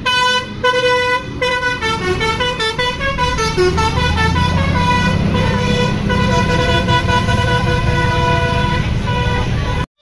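A tour bus's multi-tone musical air horn (a 'telolet basuri' horn) plays a tune of stepped notes, with a bus engine's low rumble building beneath it in the second half. The sound cuts off abruptly just before the end.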